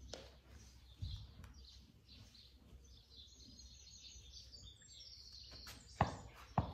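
Birds chirping faintly over a low background hum, with two sharp knocks in quick succession about six seconds in.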